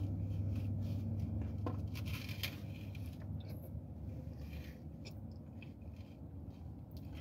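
Eating sounds: chewing, with scattered small clicks and scrapes of a plastic fork against a plastic takeout tray, over a low hum that fades over the first two seconds.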